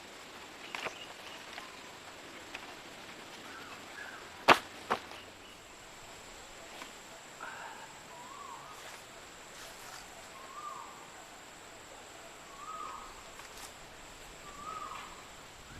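Two sharp knocks about half a second apart, the loudest sounds here, over quiet outdoor ambience. A short chirping call repeats about every two seconds, with a faint steady high-pitched whine behind it.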